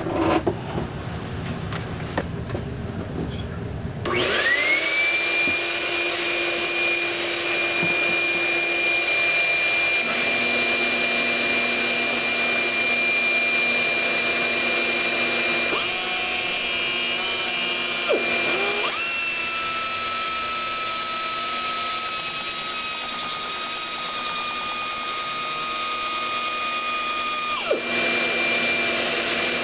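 Air-powered die grinder with a carbide rotary rasp spooling up to a steady high whine about four seconds in and cutting a plastic part turned in a drill press. The tone shifts partway through, then shuts off suddenly near the end, over a lower mechanical hum.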